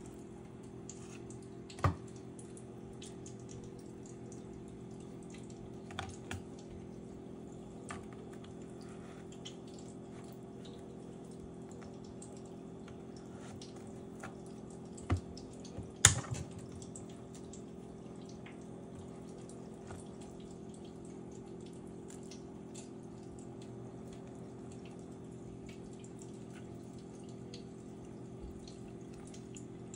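Pieces of hardened peanut fudge and a knife knocking and clicking on a wooden cutting board, a handful of times with the loudest knock about halfway through, over a steady low background hum.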